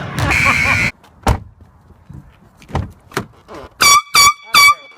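A loud, noisy sound cuts off suddenly about a second in, followed by a few short knocks. Near the end come three short blasts of an air horn in quick succession, each about a third of a second long.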